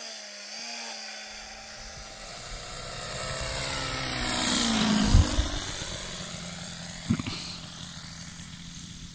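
A model plane's engine ticks over with a wavering pitch. After a cut, a SpaceWalker RC model plane passes low: its engine and propeller grow louder to a peak about five seconds in, drop in pitch as it goes by, then fade.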